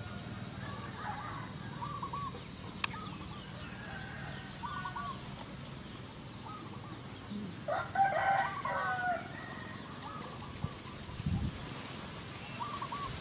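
Domestic rooster crowing once, about eight seconds in, with short quieter calls repeating throughout and a sharp click near three seconds in.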